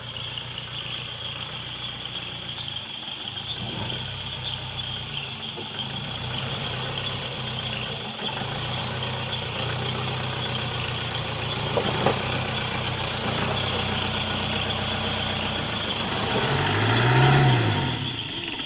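A vehicle engine running steadily, its pitch rising and falling once near the end, when it is loudest. A steady high-pitched hiss runs alongside.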